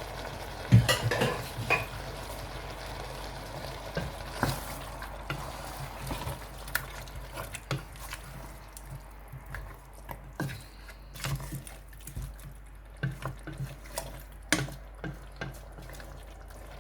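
A spoon stirring egusi soup in a cooking pot, with irregular scrapes and knocks against the pot; the loudest knock comes about a second in. A steady low hum runs underneath.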